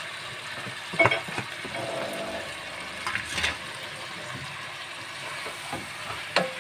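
Boiled turnip pieces landing in a hot kadai of fried fenugreek and tomato masala and sizzling lightly as a wooden spoon pushes and stirs them, with a few sharp knocks of utensils against the pan.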